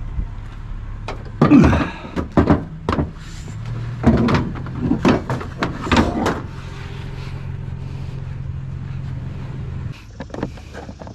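A truck engine idling steadily, with a run of knocks and clatters from about a second and a half to six and a half seconds in. The idle stops about ten seconds in.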